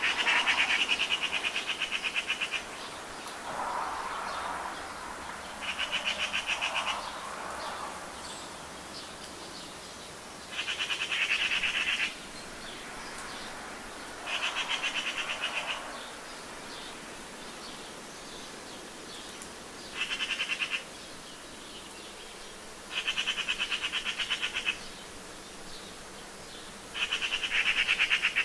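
Repeated high, rapid, evenly pulsed trills, each lasting one to two and a half seconds and coming every few seconds. A few softer, lower calls sound in the first eight seconds, over a steady background hiss.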